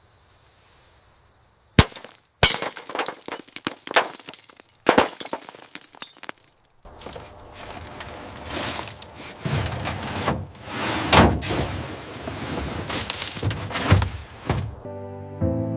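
Something breaking and crashing: a sharp impact about two seconds in, then a run of clattering and smashing, with heavier, deeper crashes from about seven seconds on. Music begins near the end.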